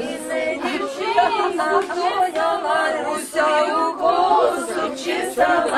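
A group of young voices singing together unaccompanied, a song sung in chorus.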